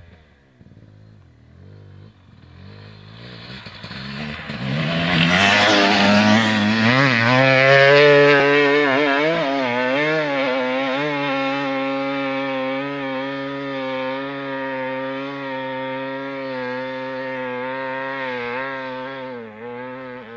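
KTM 300 XC two-stroke dirt bike coming up and passing close by under hard throttle, then climbing a steep sand hill with its engine held at high, steady revs. It fades slowly as it pulls away, with a brief dip in revs near the end.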